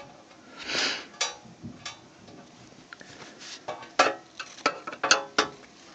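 Hand tools and small metal parts being handled while working at stubborn screws: scattered clicks with a brushing handling noise about a second in, then a quick run of sharp metallic clinks near the end, a few ringing briefly.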